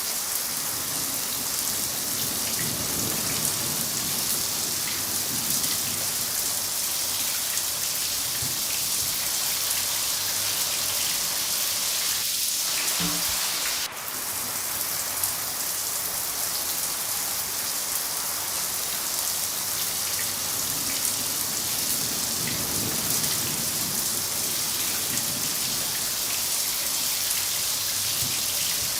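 Steady heavy rain falling, an even hiss of drops on surfaces. About halfway through it dips for a moment with a faint click.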